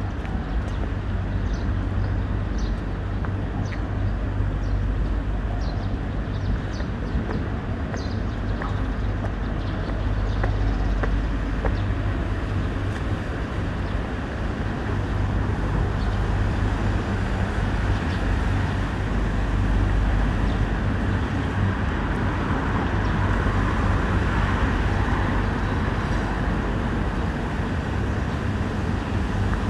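Steady rumble of road traffic in outdoor city ambience, with faint light ticks about once a second during the first third.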